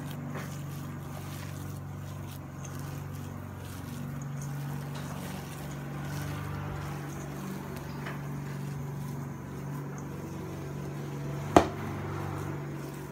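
Hands kneading and mixing thick vada batter in a bowl, soft and faint, over a steady low machine hum. A single sharp knock comes near the end.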